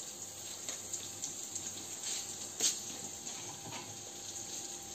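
Chorizo, onion and almonds frying in oil in a pot, sizzling: a steady hiss with a few small crackles.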